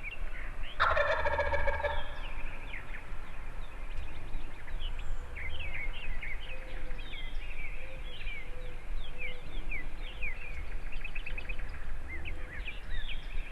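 A wild turkey gobbler gobbles once, a loud rattling call about a second in. Songbirds chirp in short notes throughout.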